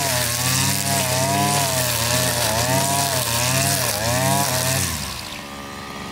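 KAVI 541 brush cutter's 41.5 cc two-stroke engine running at high revs while cutting dense weeds. Its pitch dips and recovers about twice a second as the load comes on and off. About five seconds in the throttle is let off, and the engine drops to a lower, quieter speed.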